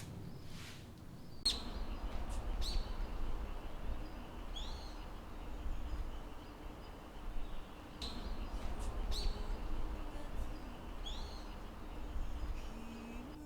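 A bird chirping repeatedly, short high calls a second or two apart, over a steady outdoor background hiss and low rumble that sets in about a second and a half in.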